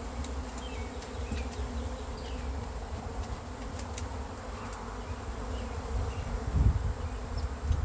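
Honeybees buzzing steadily around an opened hive. A dull bump sounds about six and a half seconds in.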